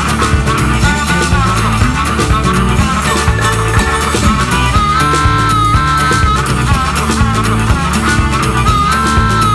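Rock band recording in an instrumental passage: guitar over bass and a steady drum beat, with no singing.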